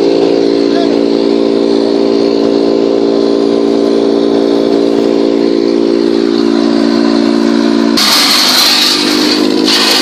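A tractor-driven PTO wood chipper running with a steady, loud droning hum. About eight seconds in, the sound changes abruptly to a harsher, hissing noise and the hum drops lower and weaker.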